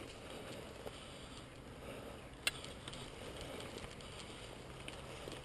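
Faint rustling of a player moving through woodland, with one sharp click about halfway through.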